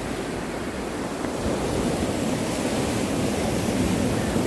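Sea surf washing against a rocky shore, mixed with wind rushing over the microphone; the noise swells a little about a second and a half in.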